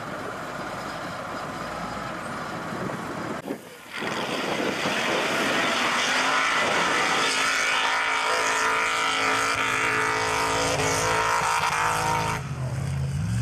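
Mud drag vehicle's engine running hard at high revs, suddenly much louder about four seconds in and held steady for about eight seconds before dropping away near the end.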